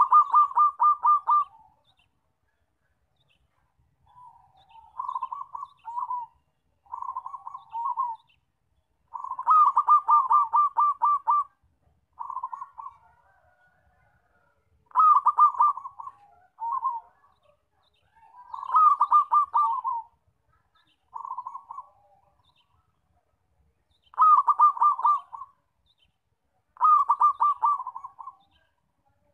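Zebra dove (perkutut) cooing: about ten phrases of rapid staccato notes, some loud and some softer, each lasting one to two seconds, with pauses between them.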